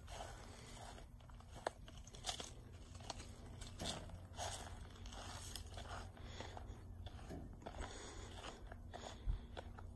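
Faint footsteps and camera handling noise: irregular light crunches and scrapes over a steady low rumble.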